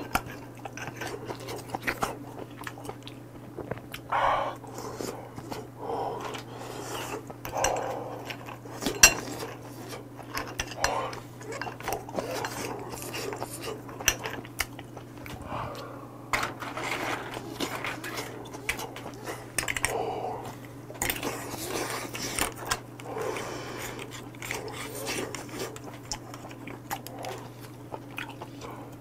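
Close-up eating sounds of a clam hot pot: chopsticks and clam shells clicking against the metal pot and bowl, with chewing and mouth noises. A sharp clack about nine seconds in is the loudest, over a steady low hum.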